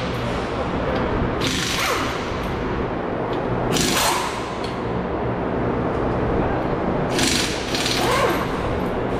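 A few short bursts of a pneumatic air tool working a wheel's lug nuts, over steady shop background noise.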